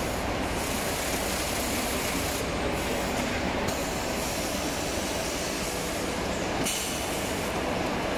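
Packaging line machinery running: a steady, dense mechanical noise with no breaks.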